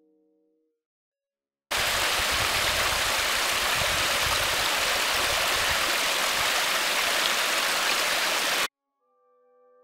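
Small forest stream trickling and splashing over rocks among ferns, a steady rushing water sound that cuts in about two seconds in and cuts off shortly before the end.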